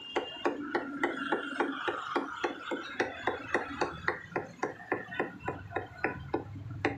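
Butcher's cleaver chopping mutton on a wooden block, mincing the meat in a fast, even rhythm of about four chops a second.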